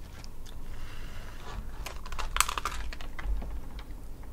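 Cooked crab being pulled apart by hand: a run of small cracks and clicks as the shell and leg joints break, thickest about two seconds in.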